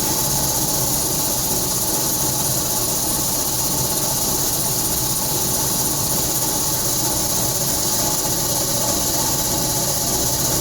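Home air conditioner running with a loud, steady noise: a high hiss over a low hum, which a contractor put down to the motor needing replacement.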